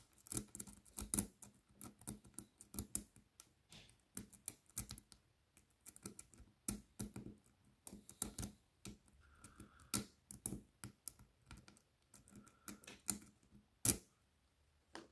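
Single-pin picking of a five-pin euro cylinder lock: a hook pick scraping and tapping the pin tumblers against a tension wrench, a quick, irregular run of small metallic clicks. A sharper click comes near the end.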